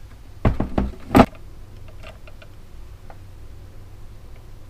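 Handling of a soldering iron and a plastic taillight housing on a workbench: a few loud knocks and a sharp click between half a second and a second and a half in, then faint scattered ticks.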